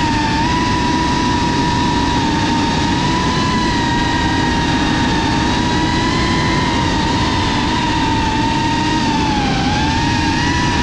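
The brushless motors and propellers of a GEPRC 35 cinewhoop FPV drone whine in flight, with a loud, fairly steady pitch over the hiss of prop wash. The pitch wavers slightly and dips briefly near the end.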